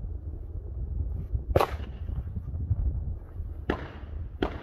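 Wind buffeting the microphone, with three gunshots, each a sharp crack with a short echoing tail. The loudest comes about one and a half seconds in, and two more follow close together near the end.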